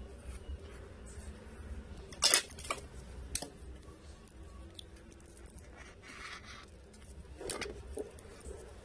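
Scattered sharp clicks and light taps of metal tweezers and smartphone parts being handled, the loudest a little over two seconds in, with a brief rustle about six seconds in, over a low steady hum.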